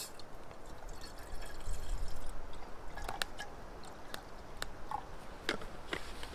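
Water being poured and dripping, most likely for a hot drink, with scattered light clicks and knocks of cups and camp gear being handled.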